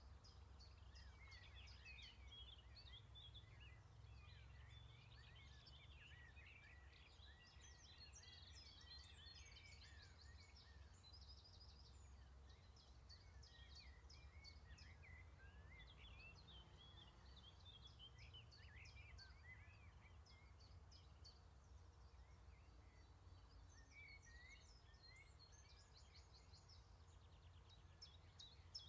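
Faint birdsong: several birds chirping and trilling throughout, over a low, steady rumble of outdoor background noise.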